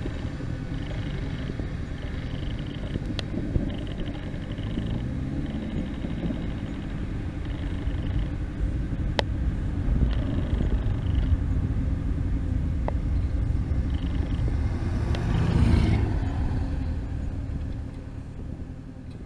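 Low, steady rumble of the Boeing 767-322ER's two Pratt & Whitney PW4060 turbofans as the airliner slows on its landing rollout. A louder swelling rush comes about three-quarters of the way through, and the rumble fades away near the end.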